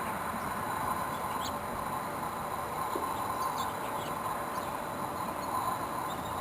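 Steady hum of many bees foraging on a flowering winterberry holly bush, with a few faint, short high chirps scattered through it.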